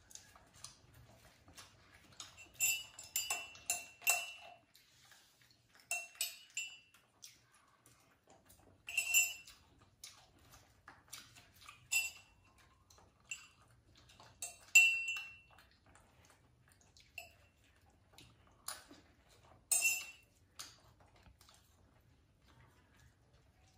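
Stainless steel dishware clinking: sharp metallic clinks and pings with a short ring, in scattered clusters, the loudest about halfway through.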